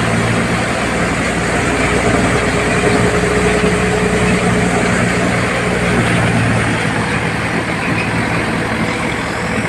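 Tractor-powered wheat thresher running steadily: the tractor engine's even drone mixed with the noise of the threshing drum working through straw.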